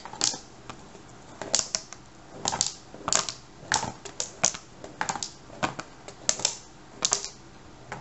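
Paint-covered marbles rolling in a cardboard box lid as it is tilted back and forth, knocking irregularly against the cardboard sides, a few knocks a second in clusters.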